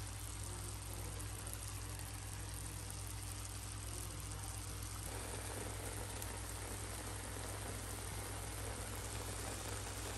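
Chicken pieces and beaten egg simmering in stock in a frying pan: a steady crackly bubbling and sizzling, growing a little fuller about halfway through, over a low steady hum.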